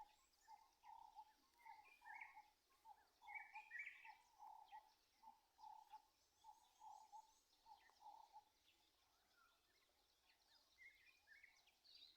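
Birds calling faintly: one bird repeats a low, short note about twice a second for the first eight seconds or so, while other birds give higher chirps in a few short clusters.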